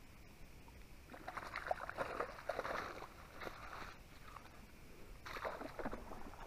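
Water sloshing and splashing as a plastic bag is dipped and swished in shallow water at the bank, in two irregular bursts: one from about a second in, and a shorter one near the end.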